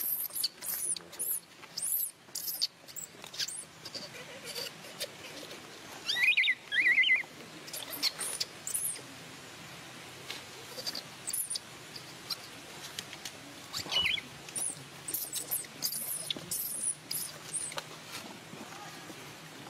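Newborn macaque infant crying in distress with repeated thin, high-pitched squeaks and squeals. The loudest bout of cries comes about six to seven seconds in, and another sharp cry comes around fourteen seconds.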